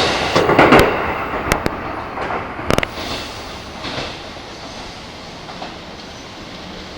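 Electric commuter train moving away, its wheels clacking over rail joints a few times in the first three seconds while the running noise fades to a low rumble.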